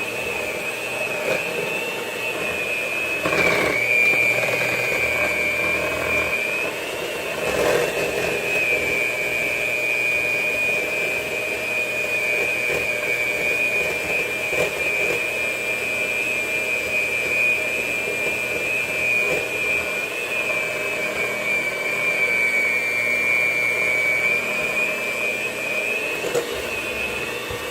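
Electric mixer running steadily with a high motor whine as it beats thick cookie dough. The pitch dips slightly a few times, about three seconds in and again near the end, as the motor slows under the load.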